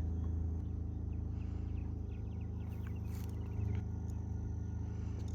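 A steady low mechanical hum, with a thin high insect trill and a few faint chirps over it.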